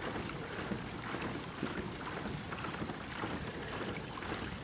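Steady rushing noise of a small boat moving along the lake, water and moving air on the microphone, with faint irregular ticks and no clear motor tone.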